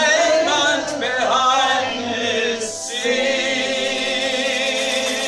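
Live singing of a pop song's final chorus, the melody moving for about three seconds and then settling into long held notes.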